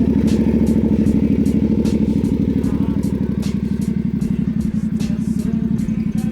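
Yamaha R7's 689cc CP2 parallel-twin engine idling steadily through an SC Project carbon slip-on exhaust, just after being started.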